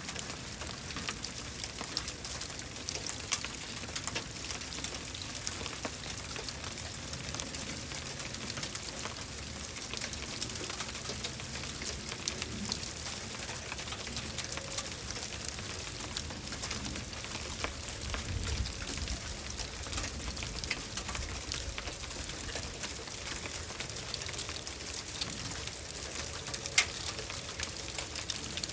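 Sleet falling: a steady hiss dotted with many small, sharp ticks of ice pellets striking surfaces.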